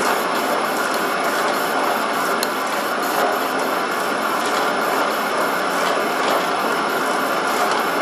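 Small metal lathe running with its change gears set up for thread cutting: a steady mechanical gear clatter with faint ticks scattered through it.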